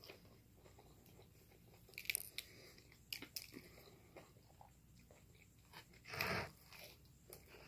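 Faint chewing of a crispy breaded chicken strip, with a few short crunches about two and three seconds in and one louder noisy sound about six seconds in.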